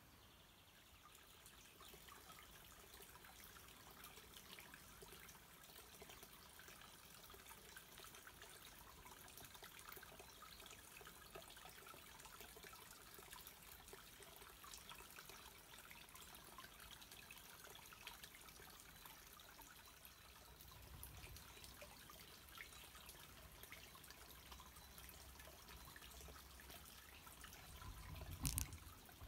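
Faint trickling and dripping of a small woodland stream over stones, with a brief low thump near the end.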